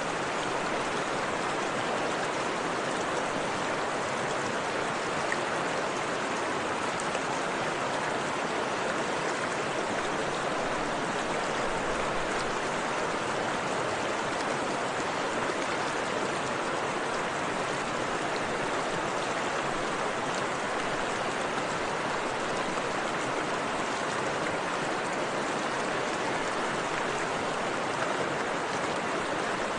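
Steady, unchanging rushing noise like running water, with no distinct events. It serves as the masking bed of a subliminal track, with the affirmations meant to be hidden beneath it.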